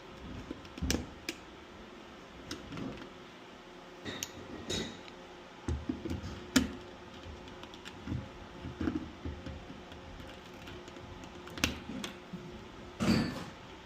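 Irregular clicks, taps and knocks of hand work, with a sharp click about halfway through and a longer clatter near the end, over a faint steady hum.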